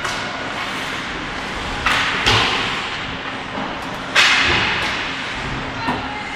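Ice hockey play: four sharp cracks of sticks and puck, the loudest about four seconds in, each echoing in the rink, over a steady hiss of skates and the arena.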